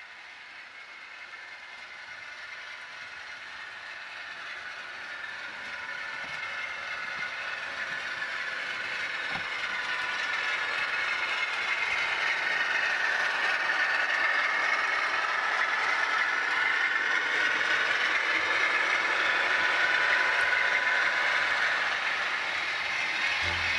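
Model railway freight train running round the track, its wheels rattling over the rails and its motor running, growing steadily louder as it comes closer.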